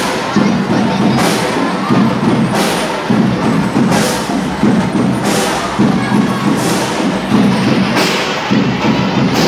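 A school drum and lyre band plays a march: drums beat steadily under the ringing of bell lyres, with a sharp crash about every second and a half.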